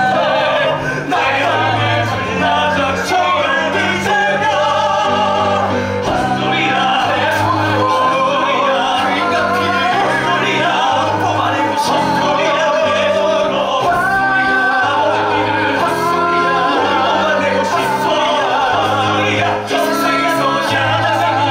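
Male voices singing a stage-musical number over instrumental accompaniment, with a bass line of held notes changing about once a second.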